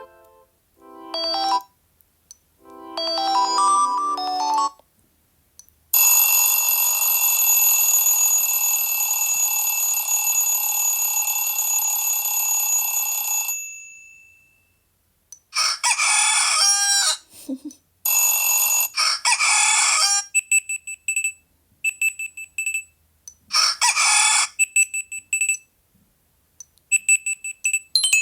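A Sony Xperia phone's speaker playing a run of ringtone and alarm tone previews one after another. First come two short chime melodies, then a long, steady buzzing tone lasting about seven seconds, then harsher rattling tones and a string of short beeps.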